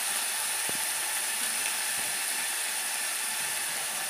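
Chopped onion, green chilli and tomato frying in oil in an open pressure cooker: a steady sizzling hiss, with one light knock just under a second in.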